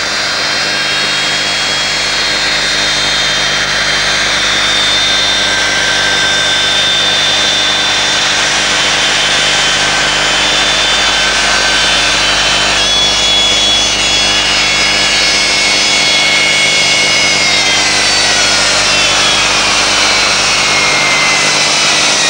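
Loud jet noise from the presidential Fokker F28's two rear-mounted engines as the plane taxis in, with several high whining tones over a steady rush. Over the last few seconds the whine falls in pitch as the engines spool down.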